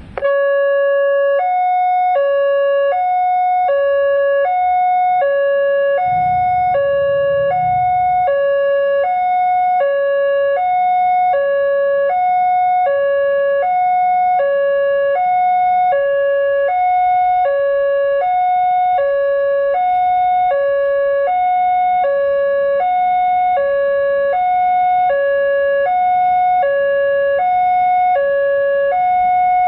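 Railway level-crossing warning signal from the crossing's horn loudspeaker: an electronic two-tone alarm switching between a low and a high tone about every half second. It starts abruptly and repeats without a break.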